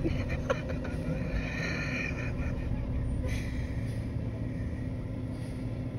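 Diesel recycling garbage truck driving slowly past, its engine running with a steady low rumble and a brief high squeal about two seconds in.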